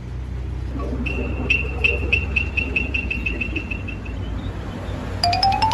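A steady low hum, with a run of short high-pitched electronic beeps, about four a second, from about a second in, then a quick series of clicks rising steadily in pitch near the end.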